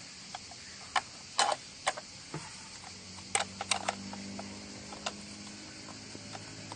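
An ignition coil being pushed into place over a spark plug in a BMW M50 six-cylinder engine: a series of short, irregular clicks and knocks as it is handled and seated.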